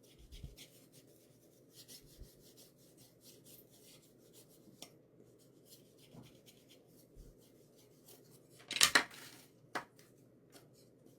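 Light rubbing and small clicks of hands working craft materials on a tabletop, with one louder, short rasping scrape about nine seconds in, followed by a sharp tap.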